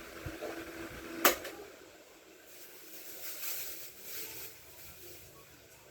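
Electric fan motor humming, then a single sharp click about a second in, like the fan's switch, after which the hum stops and only soft, uneven noise is left.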